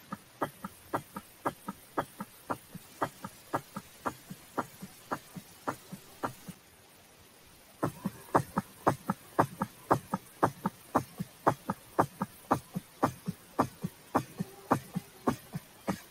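Heart sounds: a steady lub-dub heartbeat that stops for about a second midway, then comes back faster and louder.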